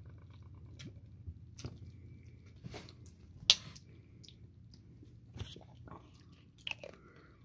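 Faint, scattered lip smacks and mouth clicks of someone tasting hot sauce, with one sharper click about three and a half seconds in, over a faint low hum.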